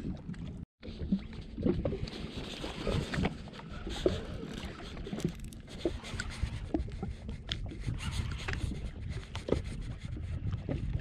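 Low rumbling wind and water noise around a jet ski drifting on the open sea, with scattered small clicks and knocks from the fishing reel and hull.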